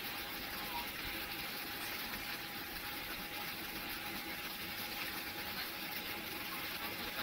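Jet airliner cabin noise while taxiing: the engines at low power give a steady rushing hiss with a faint, steady whine.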